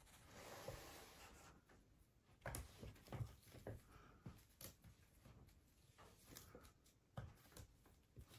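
Faint, scattered taps, thumps and scuffles of kittens pouncing on a wooden floor after a wand toy, with soft rustling near the start.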